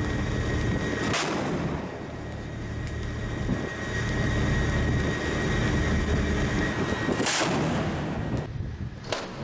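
Two sharp gun blasts about six seconds apart, naval gunfire on a warship. Under them is a steady rush of wind and ship's machinery with a faint high whine.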